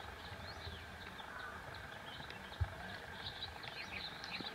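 Small birds chirping in quick, scattered notes over an open-air background, with a single low thump about two and a half seconds in.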